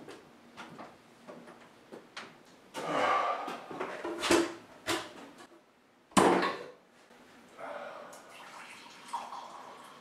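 Kitchen clatter: light knocks and a sharp, loud knock about six seconds in. Then coffee is poured from a glass carafe into a mug, a steady splashing trickle over the last two seconds or so.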